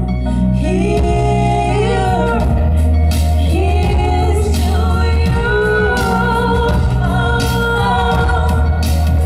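Live band music: two women singing together over a steady bass line, with a few drum hits.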